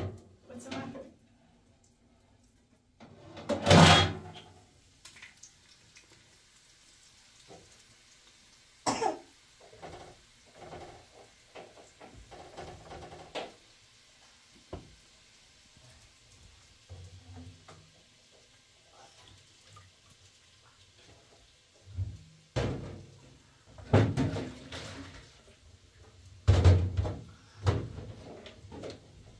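Intermittent knocks and clatter of objects being handled, with louder bangs about four seconds in and several more in the last seven seconds.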